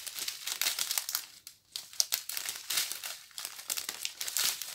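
Crinkling of a strip of small plastic zip bags of round diamond-painting drills being handled, in irregular crackles with a short pause about a second and a half in.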